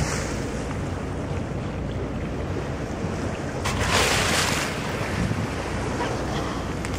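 Steady wash of sea and wind buffeting the microphone. About four seconds in, a white-beaked dolphin breaks the surface with a brief rushing splash of about a second.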